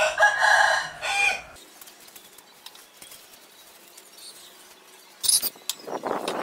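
A rooster crowing once, a pitched call in two parts lasting about a second and a half. Near the end come a few short, sharp hissing bursts, then a rough scraping noise starts.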